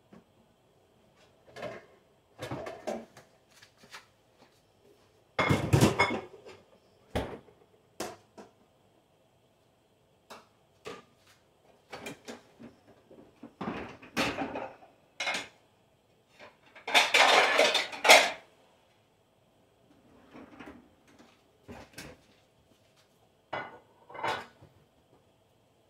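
Dishes, pots and metal utensils being handled, with irregular knocks, clinks and clatters. The loudest clattering spells come about six seconds in and again around seventeen seconds, over a faint steady hum.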